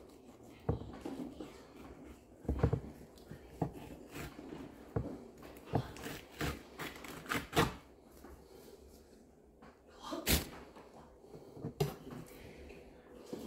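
Kitchen knife knocking and scraping on a wooden chopping board while fish fillets are cut and skinned: irregular taps, the loudest about ten seconds in.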